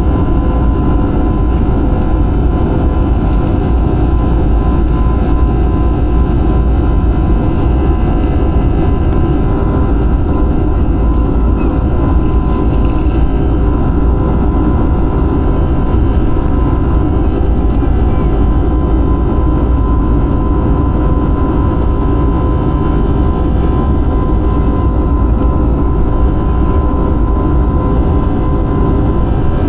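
Steady roar of an airliner's engines heard from inside the passenger cabin, with a low rumble and a few constant tones riding over it, holding level throughout.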